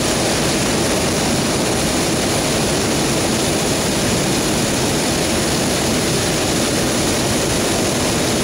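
Hot air balloon's propane burner firing in one long burn: a loud, steady rushing blast.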